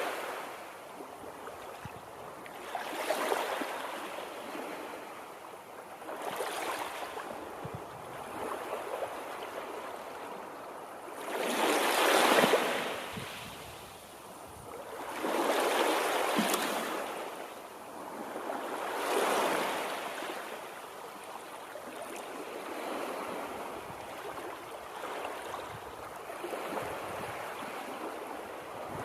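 Water washing in repeated surges, swelling and falling about every three to four seconds, the loudest about twelve seconds in.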